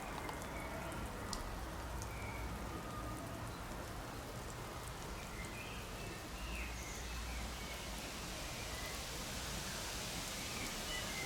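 Water spraying from a rotating garden sprinkler and pattering down like rain: a steady hiss, with a few faint short chirps above it.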